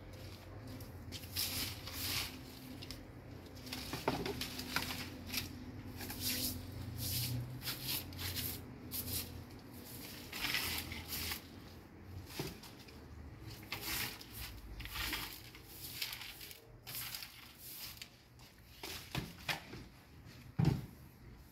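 Short straw hand broom sweeping a concrete floor in quick, irregular strokes, brushing debris into a plastic dustpan, with one sharp knock near the end.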